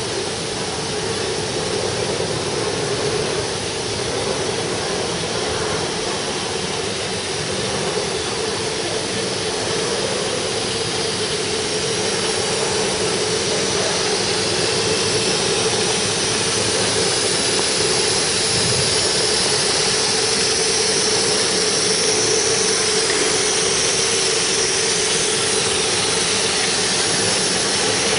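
Automatic filter bag sewing machine for needle felt running steadily: a continuous mechanical hum with a steady tone and an even hiss. It grows a little louder partway through.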